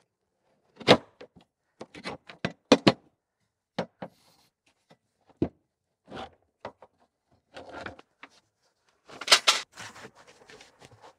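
Lid of a 30-gallon cyclone dust separator bin being unfastened and lifted off: scattered knocks and clicks, then a louder clatter and scrape about nine seconds in.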